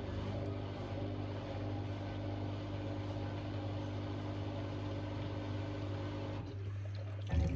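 Hoover H-WASH 700 washing machine running an intermediate spin with a badly unbalanced load: a steady machine hum with a low drone. About six and a half seconds in the spin sound drops away, leaving only the low hum, and a single thump comes near the end.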